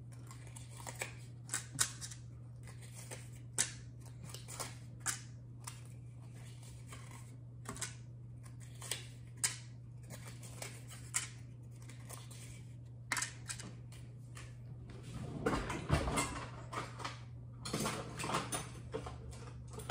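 Kitchen handling noises: irregular sharp clicks and taps as utensils and baking tins are handled, over a steady low hum, with a denser stretch of clattering and rustling about three quarters of the way in.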